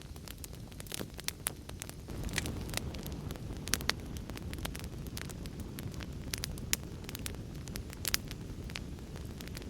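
Wood fire crackling with frequent sharp pops over a steady low rumble of rain. The rumble swells about two seconds in.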